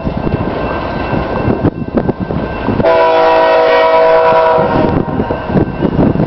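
Diesel locomotive's air horn, leading an empty coal train, sounding one long chord of several steady tones for about two seconds, starting about three seconds in. A rough rumbling noise runs before and after it.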